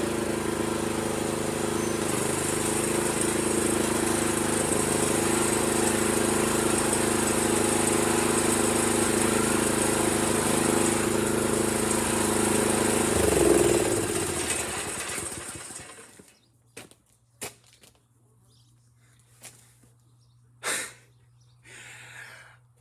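Honda GX160 single-cylinder engine running steadily while belted to the drive, which the owner says failed because the V-belt was slipping on the axle pulley. About 13 seconds in it is shut off and winds down to a stop. Then a few faint clicks and short bird chirps follow.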